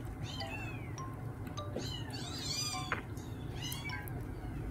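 Newborn kittens mewing over and over in high, short, arching cries, several at once, with light chime-like background music.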